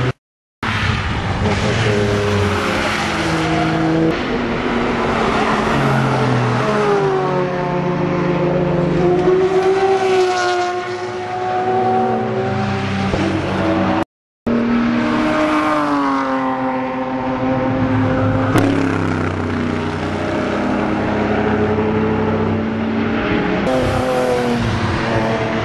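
Race car engines at speed passing one after another, their notes rising as they accelerate and dropping back at gear changes, over tyre and wind noise. The sound breaks off completely twice for a moment.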